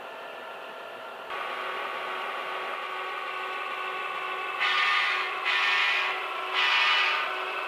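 HO scale model diesel locomotives running along the layout track: a steady mechanical whirring of motors, gears and wheels that grows louder about a second in. Near the end come three short, louder bursts, each under a second long.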